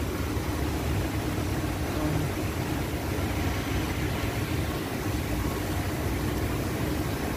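Steady hum and rumble of a factory floor, with production machinery and ventilation fans running and a faint steady tone running through it.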